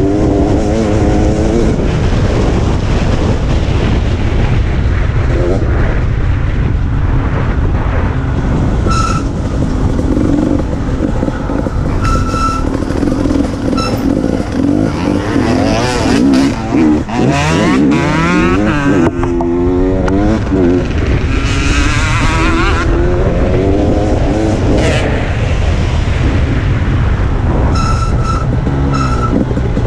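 Dirt bike engine revving up and down through the gears as it rides a rough trail, with wind rush on the microphone and occasional knocks and rattles from the bumps.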